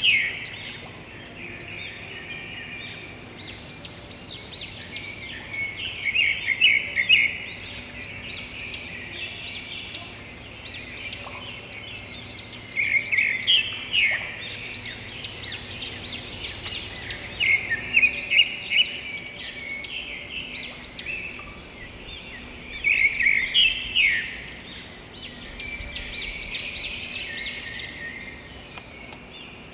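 Small birds singing: bursts of quick, high chirping notes every five or six seconds, with softer chirps in between.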